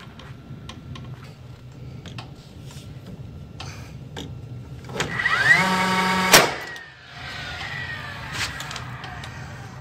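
Cordless brushless DeWalt framing nailer firing once: its motor whines up, then a sharp crack as it drives a nail at an angle through the stud into the new bottom plate, after which the whine winds down. Light handling clicks come before it.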